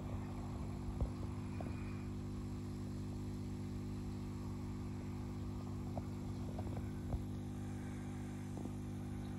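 Steady electric hum of the pond's aeration pump running, with a few faint knocks.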